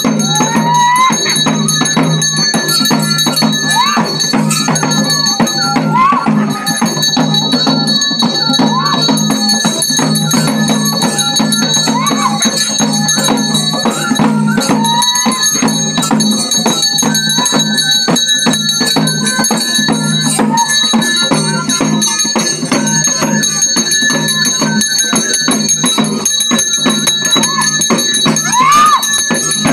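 Traditional music for a Koragajja kola ritual dance: drumming and jingling over a steady drone, with short rising calls about every two seconds.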